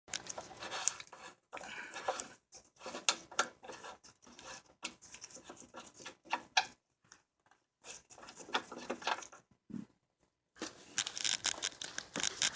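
Irregular faint clicks, taps and scrapes of a hand tool on metal as the bumper reinforcement's bolts are worked with an Allen key, with a couple of short pauses.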